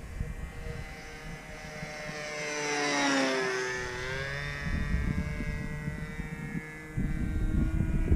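Radio-controlled model airplane's motor and propeller whining as it flies past. The pitch drops as it passes closest about three seconds in, then the sound fades. Wind buffets the microphone in the second half.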